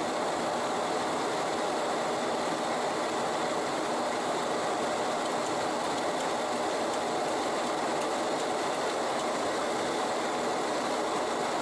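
Steady cockpit noise of a Boeing 737 in flight: an even rush of airflow, with no change in level.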